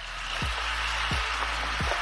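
Background music with a deep kick drum beating about every two-thirds of a second under a steady rushing hiss.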